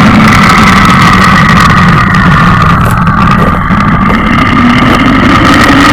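Loud, continuous engine-like roar of a homemade air-strike sound effect, wavering slightly in pitch, with a brief dip about three and a half seconds in.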